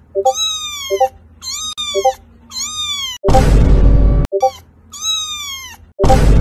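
Cat meows used as sound effects, about five drawn-out calls that rise and then fall in pitch, each led by a short pop like a chat-message notification. About three seconds in and again near the end, a loud noisy blast heavy in bass lasts about a second each time.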